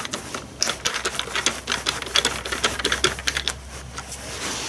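Hand screwdriver driving screws into a battery chainsaw's plastic housing: a quick, irregular run of clicks.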